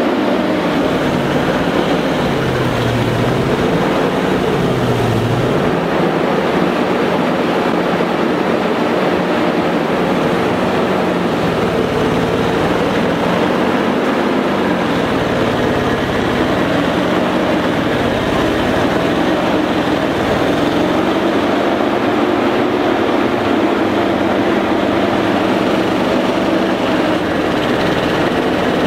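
ZIL-131 army truck's V8 petrol engine running, the revs rising and falling unevenly several times, then holding steadier for a while near the end.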